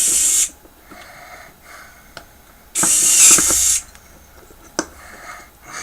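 A man breathing out hard through his nose close to the microphone, twice: a short rush at the start and a longer one about three seconds in, with softer in-breaths between. Two small clicks from the screw and faucet stem being handled, about two and five seconds in.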